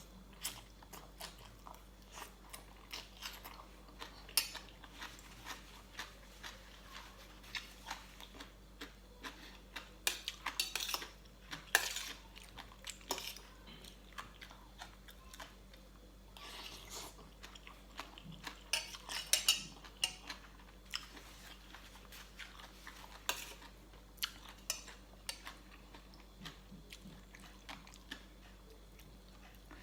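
Someone eating papaya salad with chicken feet: utensils clinking on a dish, with wet chewing. The clinks come in short irregular runs and are densest about ten and nineteen seconds in.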